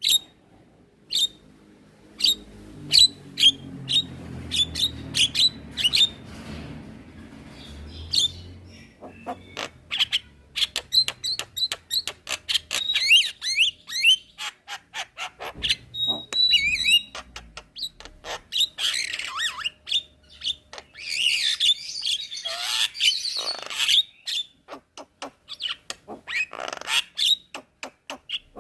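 Javan myna (jalak kebo) singing a fast, varied chattering song of sharp clicks, chirps and short whistles, with a stretch of harsh rasping notes about two-thirds of the way through.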